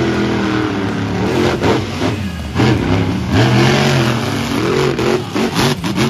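Monster truck engines revving hard as the trucks race, the pitch rising and falling several times, with a run of quick throttle blips near the end.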